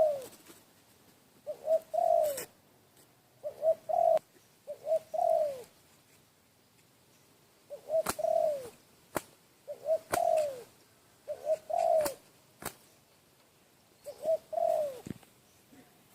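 A dove cooing over and over. Each phrase is two or three quick short notes and then a longer note that falls away, repeated every one to two seconds with short pauses, and a few sharp clicks come in the middle.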